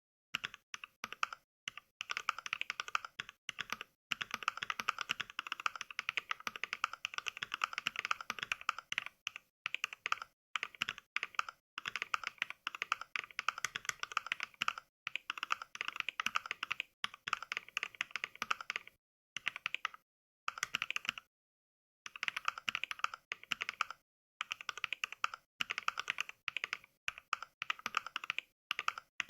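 Fast, continuous mechanical-keyboard typing played back by Mechvibes from its NK Cream switch sound pack, a recorded click for each keystroke. A few brief pauses fall in dead silence, the longest about three quarters of the way through.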